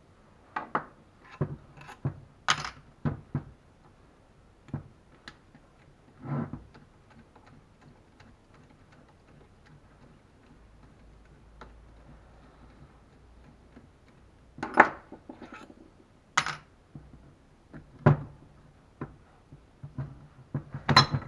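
Scattered clicks and knocks of a screwdriver working the screws out of a converted car alternator's aluminium housing, with a quiet stretch in the middle. Sharper metal knocks follow in the second half as the housing is handled and pulled apart.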